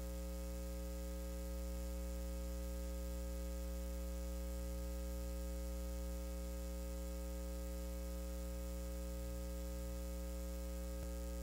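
Steady electrical mains hum, a low buzz with many even overtones over a faint hiss.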